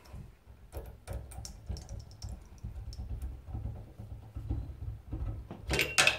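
Light metallic clicks and knocks as the rotor of a Nissan TD42 alternator is worked out of its housing and stator, over a low rumble, with a louder knock that rings briefly near the end.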